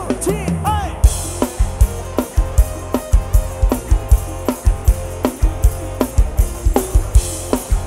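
Thai rot hae sound-truck band playing an instrumental passage live. A drum kit keeps a steady, fast kick-drum beat under guitar, and sweeping gliding tones fill about the first second before the beat settles in.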